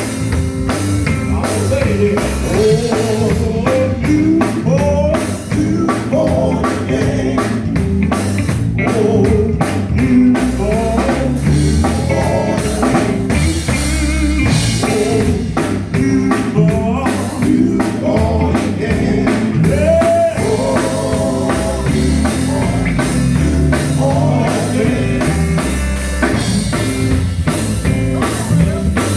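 Live gospel band performing a song about being born again: a drum kit and band keep a steady beat while voices sing over it.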